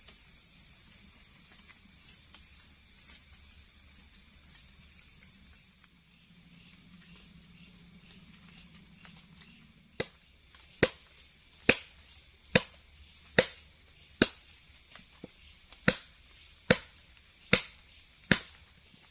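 A faint steady high chirring of night insects, then about halfway through a run of about ten sharp, evenly spaced knocks, a little over one a second.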